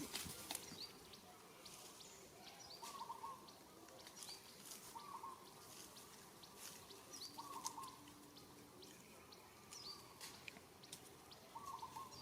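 Faint outdoor ambience: a short chirping call repeating about every two seconds over a soft hiss, with scattered light clicks.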